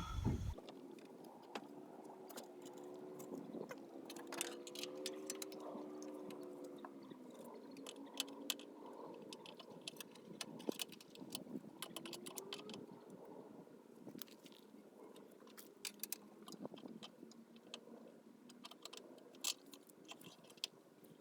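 Scattered light metallic clicks, clinks and knocks as vehicle batteries and their cable terminals are handled and set into a battery tray. A faint wavering hum runs for a few seconds near the start.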